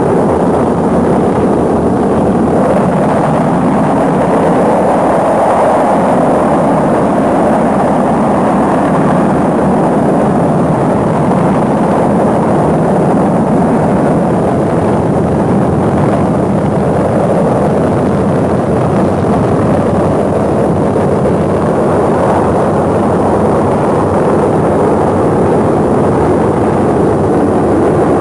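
Saturn V rocket at liftoff, its engines making a loud, steady rumbling noise with no break.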